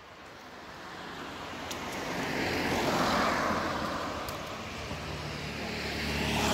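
Cars passing on a road: tyre and engine noise swells to a peak about three seconds in and eases off, then a second vehicle with a low engine hum grows louder near the end.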